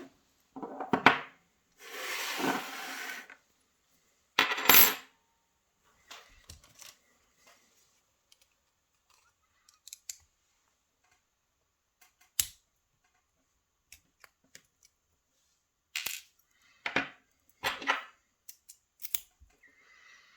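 Abus/Pfaffenhain WavyLine pin-tumbler lock cylinder being taken apart by hand: scattered small metallic clicks and clinks of its parts being handled and set down, with a longer rattle about two seconds in and a few sharper knocks.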